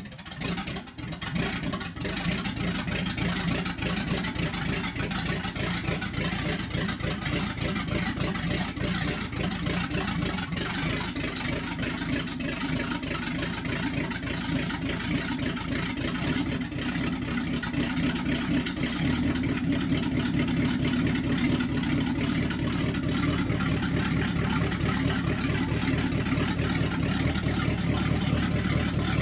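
Freshly built small-block Chevy V8 running steadily in a 1964 Chevy C10 pickup, a throaty V8 note; its tone changes partway through as the engine settles.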